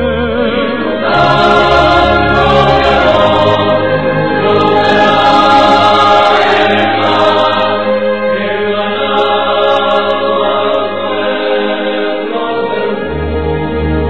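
Background music with a choir singing long held notes, the voices wavering with vibrato.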